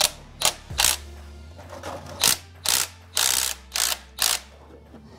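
Hand ratchet wrench turning bolts: about eight short ratcheting bursts, with a pause of about a second after the first three.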